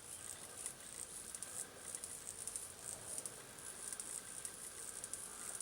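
Honeybees from an opened package buzzing and agitated, a faint steady hum under a pulsing high chirring.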